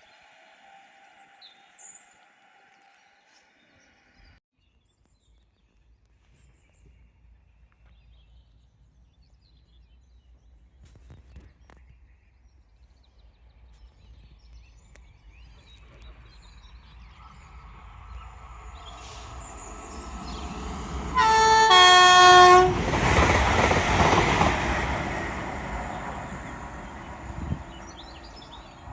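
A train approaches with a rising rumble. A little over 20 seconds in it sounds a short two-note horn, then passes loudly, and the rumble dies away.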